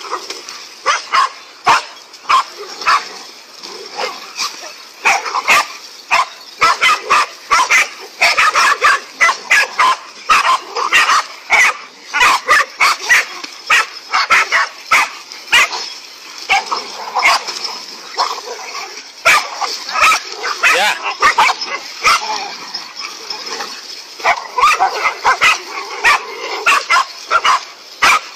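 Several dogs barking hard and fast, overlapping barks several a second without pause: a pack of dogs mobbing and attacking a large snake.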